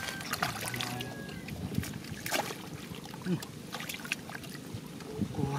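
Shallow muddy water splashing and trickling as hands grope through it, in short irregular splashes.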